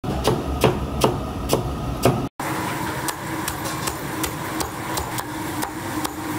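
A cleaver chopping through cabbage on a wooden chopping board, five heavy chops about two a second. After a brief cut, a knife chopping crispy fried chicken on a wooden block gives lighter, quicker knocks over a steady kitchen hum.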